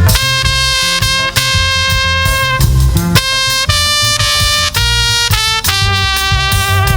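Live gospel band playing an instrumental passage. A brass-sounding lead, like a saxophone or trumpet, plays a string of long held notes that step in pitch, over bass guitar and drums.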